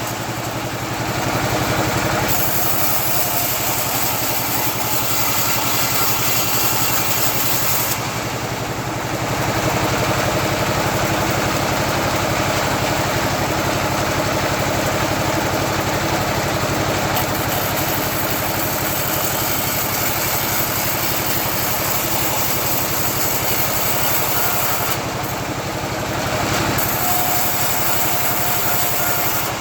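Bandsaw sawmill running steadily while sawing eucalyptus, its engine and blade making a constant mechanical drone with a high hiss over it. The hiss drops out briefly three times.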